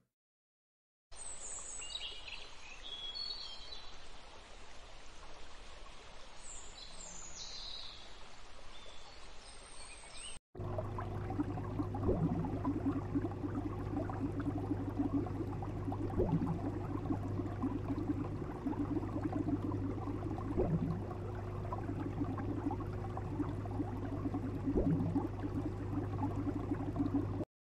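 Outdoor ambience with a faint hiss and a few short bird chirps. About ten seconds in it cuts to a steady low hum from an aquarium tank, with a few soft clicks.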